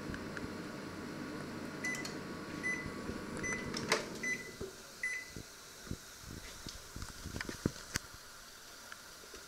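Panasonic inverter microwave oven running with a steady fan hum, then beeping five times, just under a second apart, as its cooking cycle ends. The door latch clicks open about four seconds in, the hum stops, and a few light knocks follow as the door is lowered.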